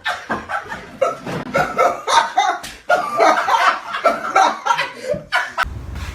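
People laughing hard, with a few sharp smacks among the laughter, stopping shortly before the end.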